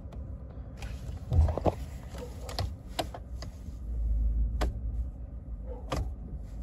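Steering-wheel control buttons on a Ford F-150 clicking several times as the instrument-cluster menu is scrolled, over the low rumble of the truck's engine idling. A brief hum-like sound comes about a second and a half in.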